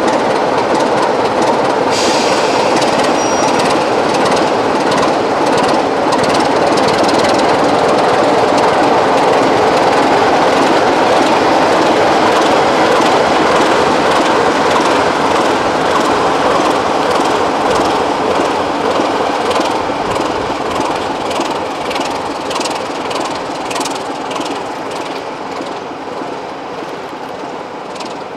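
Class 24 diesel locomotive running steadily at low speed as it passes, with its wheels clicking over the rail joints. The sound fades over the last several seconds as it draws away.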